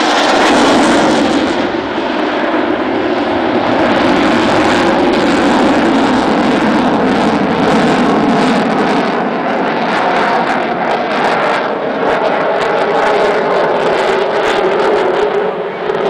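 Eurofighter Typhoon's twin EJ200 turbofan jet engines, loud and steady throughout as the fighter flies its display, with a brief dip in level near the end.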